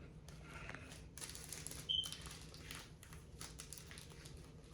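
Soft rustling and light crackles as small foam beads are added to homemade slime, with a brief high squeak about two seconds in.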